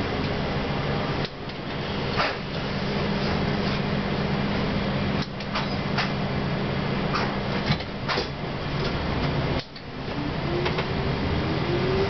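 Interior running noise of a CLRV streetcar travelling along the track: a steady rumble and hum with a few sharp clicks. The traction motor whine falls in pitch at the start and rises again near the end as the car picks up speed, and the noise drops off abruptly three times.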